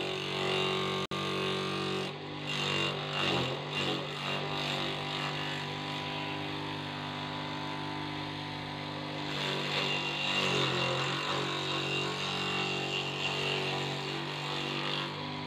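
Small electric forage chopper (chaff cutter) running steadily, its motor and spinning blade rotor giving a constant hum. Rougher, louder stretches come a couple of seconds in and again about ten seconds in, as handfuls of leaves are pushed in and shredded.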